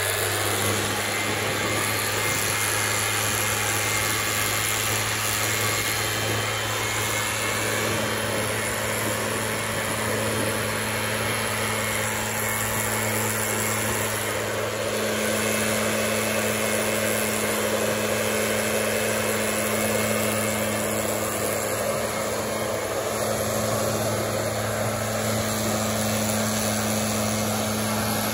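Stihl backpack leaf blower's two-stroke engine running steadily at high speed, with a constant rush of air from the nozzle.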